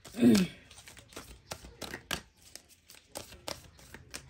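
A deck of tarot cards shuffled by hand, giving irregular quick flicks and snaps of the cards. A brief voiced sound right at the start.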